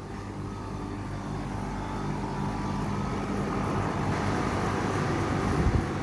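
Lennox central air-conditioner outdoor condenser unit running, a steady fan and compressor hum that grows louder as it is approached. A brief low thump near the end.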